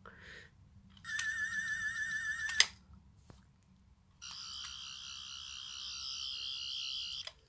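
Electronic sonic-screwdriver sound effect: a rapidly warbling tone from about a second in, cut off by a sharp click, then a second, higher-pitched warbling tone from about four seconds in until near the end.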